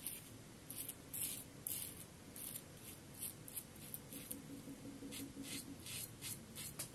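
Fatip slant double-edge safety razor scraping through a five-day beard in many short strokes, each a faint rasping scratch.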